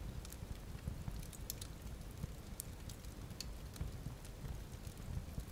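Fire crackling: scattered sharp crackles at irregular moments over a steady low rumble.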